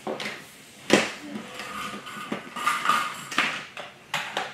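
Small toy cars clacking and knocking as they are picked up and set down against plastic track and each other: a handful of sharp, separate clacks, the loudest about a second in.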